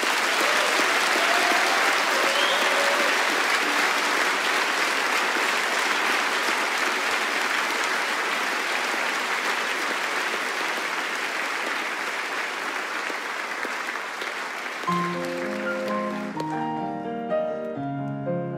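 A concert audience applauding steadily, the clapping slowly thinning. About 15 seconds in, a Petrof piano begins playing a song's opening notes as the applause dies away.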